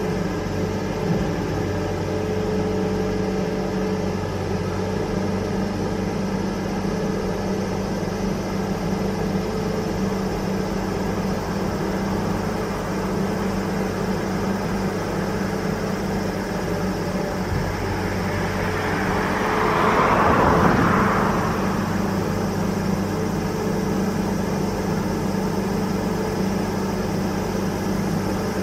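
Steady low drone of the diesel machinery on a river work boat, a Hitachi EX1100 excavator digging out the concrete riverbed, with no distinct strikes. About twenty seconds in a rushing noise swells up for a couple of seconds and fades.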